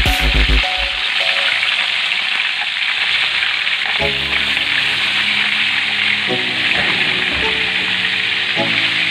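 Pieces of carp frying in oil in a wok, giving a steady sizzle.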